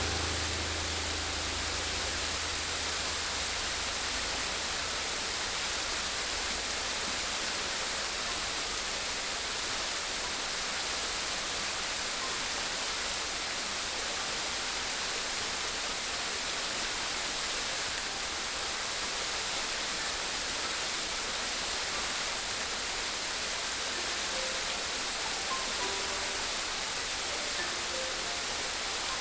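Steady rushing water, an even hiss with no surges or breaks.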